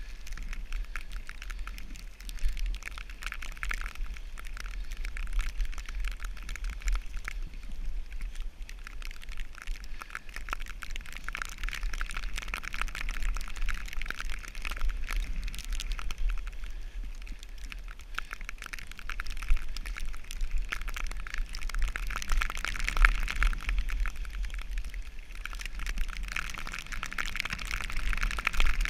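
Snowboard sliding down a snowy slope: a continuous crackling hiss of the board on the snow, with low wind rumble on the microphone, swelling louder now and then as the rider turns.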